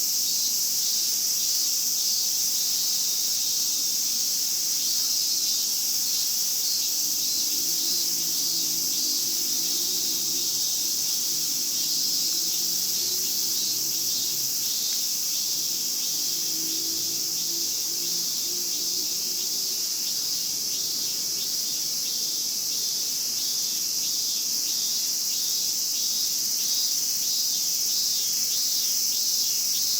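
Chorus of cicadas, a dense, steady, high-pitched shrill with a fast pulsing texture.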